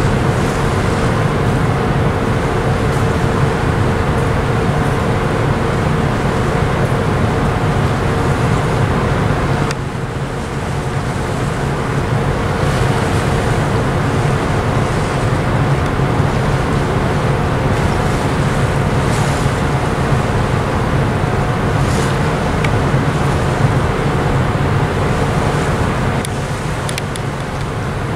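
Steady low drone of ship engines and machinery with a constant hum, easing slightly twice.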